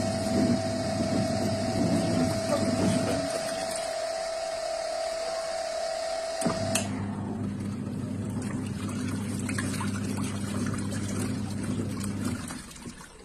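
Washing machine running: a steady motor hum with a water-like swish. A high steady whine stops with a click about halfway through, and the motor hum cuts out near the end.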